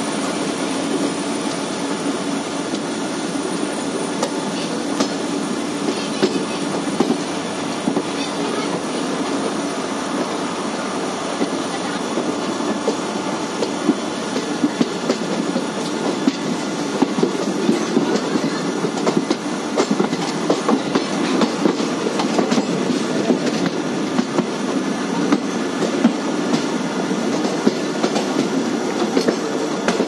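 Indian Railways passenger train running on the track, heard from the coach doorway: a steady rumble of wheels on rail with clickety-clack over the rail joints, the clicks growing more frequent in the second half.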